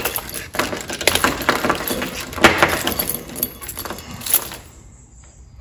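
A bunch of metal keys and car key fobs jangling and clinking as they are handled and lifted off a wall hook, stopping shortly before the end.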